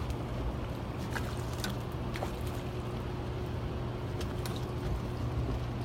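Boat motor running steadily, a low hum with a faint steady whine above it, and a few light clicks over it.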